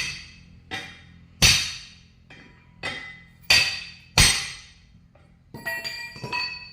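A hammer striking metal in heavy, ringing blows, one every half to one second, then a quick run of lighter taps near the end, during work on a truck tyre.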